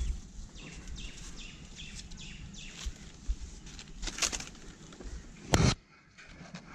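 Rustling and scraping of hands and body against a coconut palm's trunk and dry fronds during the climb to the crown, with birds chirping in short falling notes. A brief loud knock comes about five and a half seconds in.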